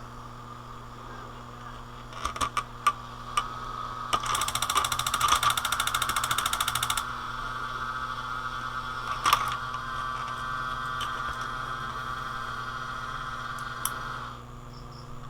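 A few clicks, then the DVD player's disc mechanism running as the repaired player powers up: a rapid buzzing for about three seconds, then a steady high whine that stops shortly before the end.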